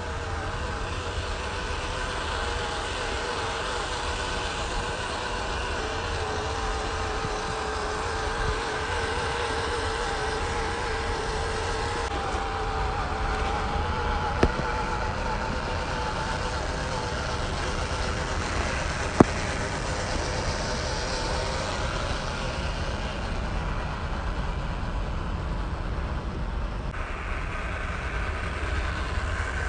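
WPL B16 scale RC truck's small electric motor and gearbox whining steadily, the pitch wavering slightly as it hauls a heavily loaded trailer over grass. Two sharp clicks, about five seconds apart, come near the middle.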